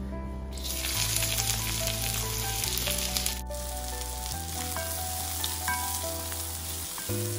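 Chopped onion and garlic sizzling as they hit hot oil in an iron kadai. The hiss starts about half a second in and carries on, with a wooden spatula stirring them later on. Background music underneath.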